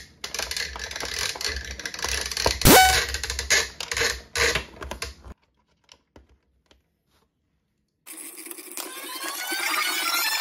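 Plastic toy playset parts being handled and fitted together: rattling, scraping and clicking, with one loud snap about a quarter of the way in. The sound then cuts to silence for a few seconds before background music fades in near the end.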